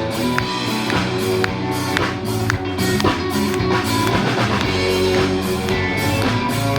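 Live rock band playing an instrumental passage: electric guitar and bass over a drum kit keeping a steady beat, with no vocals.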